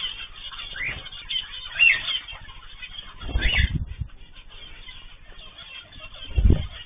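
Small cage birds chirping in short, rising calls, with two low flutters of wings, one about halfway through and one near the end.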